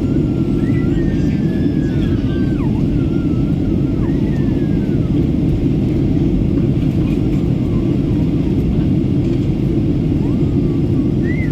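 Boeing 737-800 cabin noise on the descent: a steady rumble of airflow and the CFM56 engines. Faint voices come through now and then.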